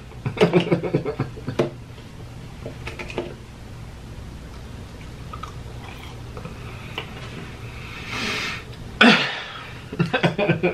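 A man laughing nervously: a sudden burst about nine seconds in, then short rapid laughs. Before it, a quiet stretch with a steady low hum.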